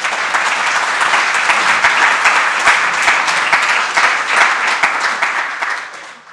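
Audience applauding, dense clapping that tapers off near the end.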